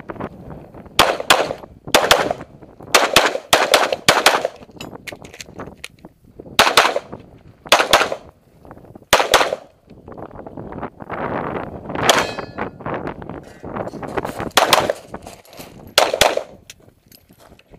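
Glock pistol firing a string of shots, mostly in quick pairs, with gaps of a second or more between groups.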